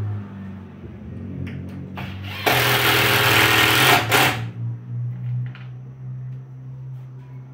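Cordless drill running into wood in one burst of about two seconds, a loud motor whine, with a few light clicks of handling just before it.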